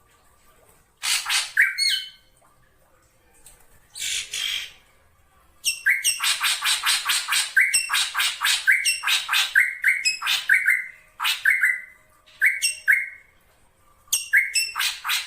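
Black drongo calling in harsh, squawking bursts: a rattling chatter, a rapid run of buzzy notes, then a string of short ringing calls that each drop slightly in pitch, grouped in twos and threes.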